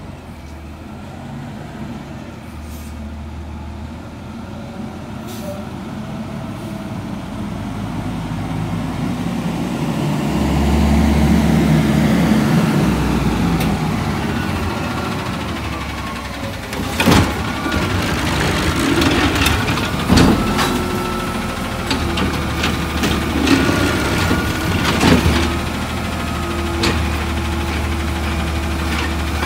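Natural-gas Autocar ACX garbage truck with a McNeilus ZR side-loader body driving up to the camera. Its engine gets louder over about ten seconds as it approaches. In the second half there are several sharp knocks and clatters as it pulls alongside and stops.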